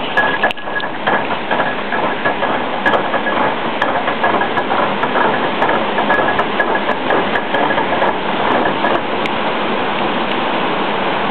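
Water pouring through the sluices of a canal lock's upper gate into the lock chamber: a loud, steady rush, with scattered clicks and knocks.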